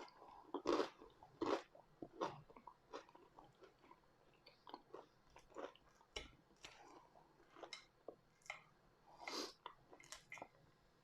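A person chewing food with irregular crunchy bites, mouth sounds picked up close.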